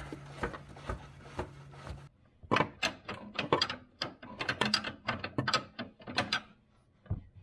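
Socket ratchet clicking in short, quick bursts as the new upper control arm's bushing bolts are snugged up lightly, not yet torqued. A steady low hum sits under the first two seconds and cuts off there.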